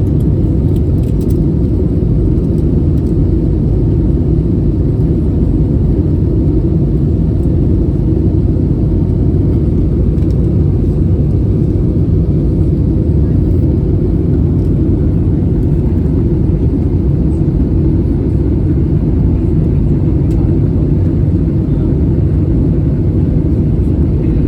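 Steady low rumble inside the cabin of an Airbus A320neo, the noise of its Pratt & Whitney PW1127G geared turbofan engines and the airflow around the fuselage, holding level without change.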